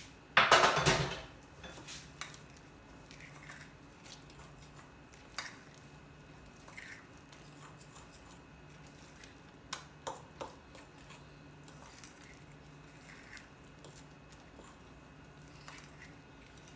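A spoon stirring walnuts into thick banana bread batter in a bowl, with a few light clinks of the spoon against the bowl. A brief loud noise about half a second in.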